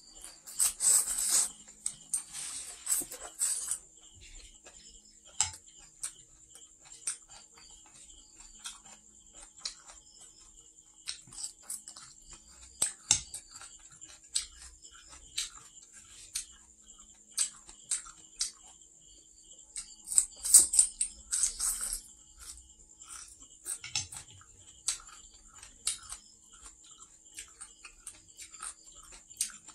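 Close-up eating sounds: noodles and stir-fried water spinach slurped in with two longer, louder slurps, one right at the start and one about two-thirds of the way through. Between them come many short wet clicks and crunches of chewing, with chopsticks picking at the plate, over a faint steady high-pitched tone.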